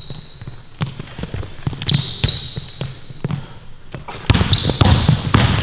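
Basketball being dribbled on a court: a run of short, sharp bounces with sneakers squeaking. The thuds get louder and come thicker over the last second or so.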